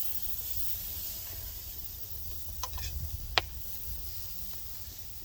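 Steady hiss of food sizzling over a wood fire, with a few faint ticks near the middle and one sharp click about three and a half seconds in.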